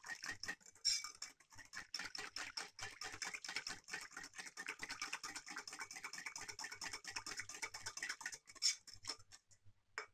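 Wire whisk beating yeast and warm water in a ceramic bowl, its wires clicking against the bowl in fast, even strokes that stop just before the end.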